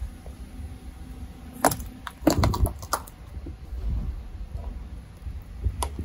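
Painted figurine cracking and shattering under a rolling car tyre: a sharp crack, then a quick cluster of crunching cracks about two seconds in, and a few more cracks near the end as the tyre rolls over the pieces. A low rumble from the tyre runs underneath.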